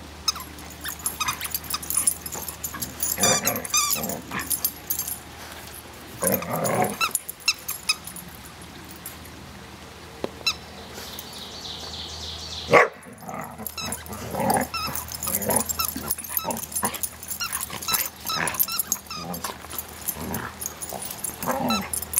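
Two dogs play-fighting, with irregular bursts of growling and barking broken by short pauses. A single sharp click just past halfway is the loudest sound.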